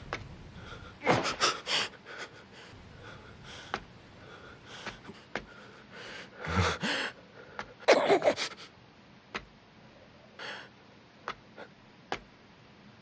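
A man's strained gasps and heavy breaths, in short bursts spread out with pauses, with a few faint clicks in between.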